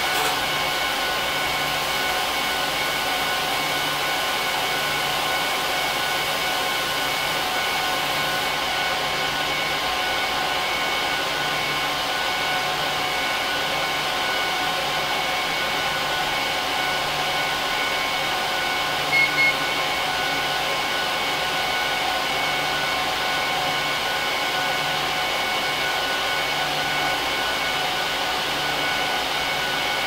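HP ProLiant DL380p Gen8 server's six system fans running at high speed during POST and boot, a steady loud rush with several whining tones, not yet ramped down to idle. Two short high beeps about 19 seconds in.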